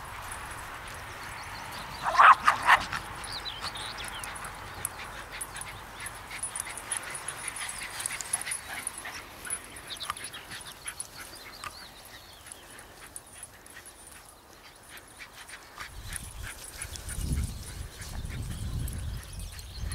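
Cairn terriers barking: a quick burst of about three loud barks two seconds in, then scattered fainter yips. A low rumble comes in near the end.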